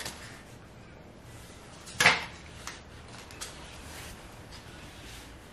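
Tableware handled by toddlers eating at a table: one sharp clack about two seconds in, then a couple of lighter clicks, from a plastic lid, chopsticks and bowls.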